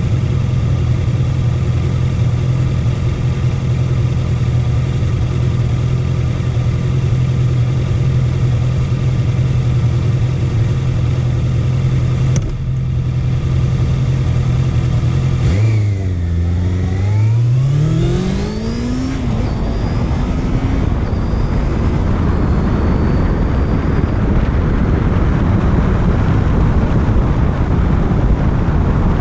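Honda CB650F's inline-four engine running at a steady pitch, then accelerating hard with a steeply rising pitch a little past halfway. Wind rush on the microphone then builds and covers the engine as the bike gains speed.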